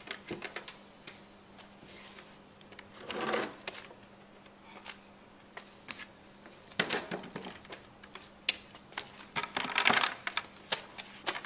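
A heavy wooden work table with a 2x4 frame and OSB top being tipped over and set upright on concrete: scattered knocks and scrapes of wood on concrete, loudest in clusters about three, seven and ten seconds in.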